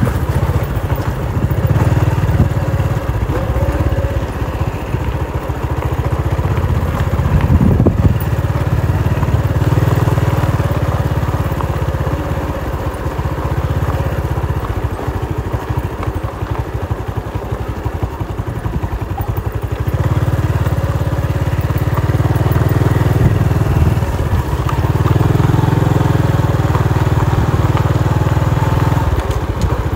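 A motorbike engine running as it rides along a rough dirt track, with a heavy low rumble that eases off in the middle and picks up again about twenty seconds in.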